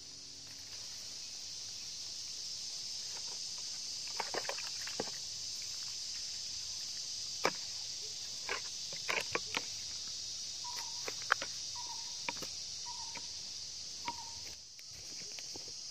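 Steady high-pitched insect chorus, with scattered scrapes and taps of a trowel and gloved hands working dry soil. Four short even notes, about a second apart, sound near the end.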